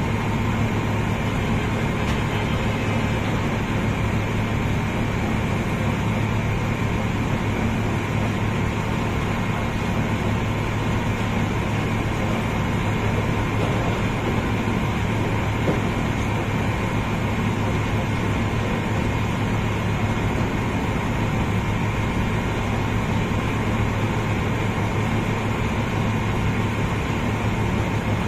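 Steady drone of a sand barge's unloading machinery: a constant low hum with a fainter steady higher tone over a rushing noise, unchanging throughout.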